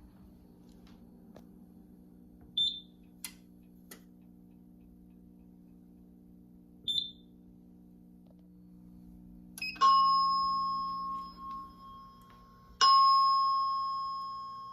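Fire alarm demo system sounding two bell-like chime strikes about three seconds apart, each ringing out and fading over a couple of seconds. Earlier there are two short high beeps and a few light clicks.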